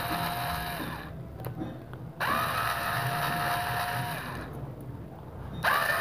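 Cordless electric screwdriver backing screws out of a juicer motor's mounting plate, run in short spurts: its motor whines up to a steady pitch each time it starts. It stops about a second in, runs again from about two seconds to four and a half, and starts once more near the end.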